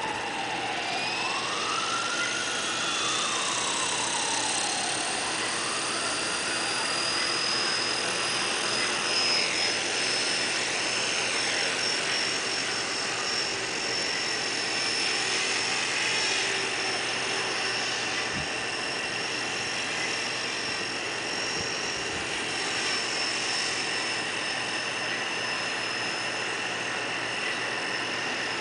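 Align T-REX 250 electric RC helicopter's motor and rotor whining. The pitch rises over the first few seconds as the rotor spools up, then holds as a steady high whine with small shifts in pitch while it hovers and flies.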